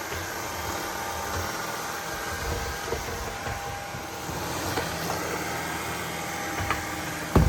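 Shark cordless pet stick vacuum running steadily, picking up dirt from a rug, with a sharp knock just before the end.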